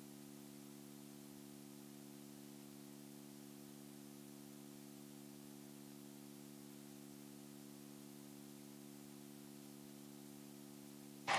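Near silence: a faint steady hum of several low tones, with loud sound cutting back in suddenly at the very end.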